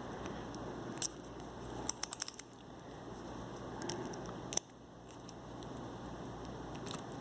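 Light metallic handling clicks of a small padlock and a thin bypass tool: a single click about a second in, a quick rattle of clicks around two seconds, and another click after about four and a half seconds, over a faint steady hiss.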